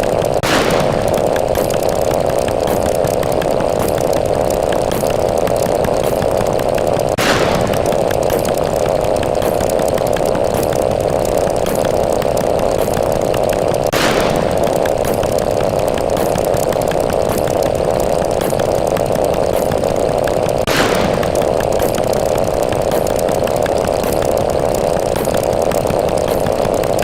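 A steady, loud, harsh buzzing drone from an added sound effect, with a short click about every seven seconds.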